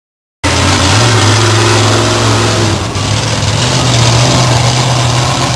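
Monster truck engine running loud and steady with a deep drone, cutting in suddenly about half a second in.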